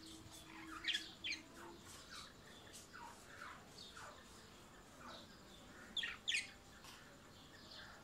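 Budgerigars chirping and chattering: a string of short, falling chirps, loudest in quick pairs about a second in and again about six seconds in.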